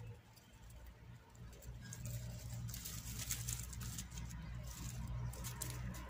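Wild rabbits moving over dry grass, straw and soil at a burrow: irregular light rustling and scratching that grows busier from about two seconds in, over a steady low hum.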